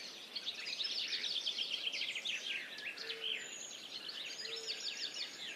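Birds chirping in a forest ambience: busy runs of quick high chirps throughout, with a short low note about three seconds in and again a second and a half later.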